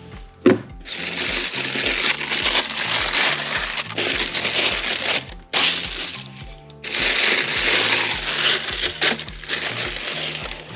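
Black tissue paper crinkling as it is unfolded and handled, in two long stretches, over background music with a steady beat. A single sharp tap comes about half a second in.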